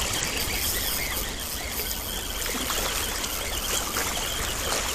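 Steady rush of moving water, with a few faint ticks.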